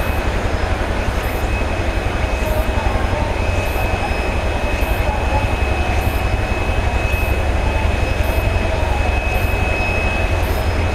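Boeing 767-300 jet engines running at taxi power as the airliner turns onto the runway: a steady whine over a constant low rumble.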